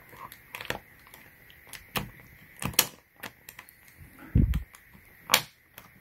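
Metal zipper-pull rings clicking and rattling against a suitcase's built-in TSA combination lock as they are pushed into its slots and latched: several sharp clicks spread out, with one duller knock about three-quarters of the way through.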